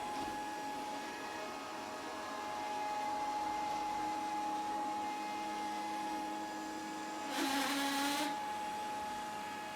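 Grundig VCR 2131 robot vacuum running, a steady motor whine with a hiss. About seven seconds in, a harsher surge lasts under a second, then the steady whine goes on.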